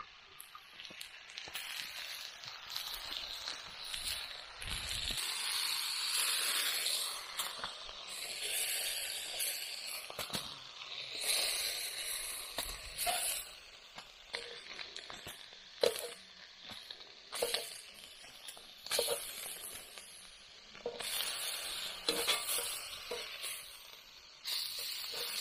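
Meat and vegetables frying on a round hotplate over a campfire, a sizzle that swells and fades. Metal tongs click and scrape on the plate as the food is turned and lifted off, several times in the second half.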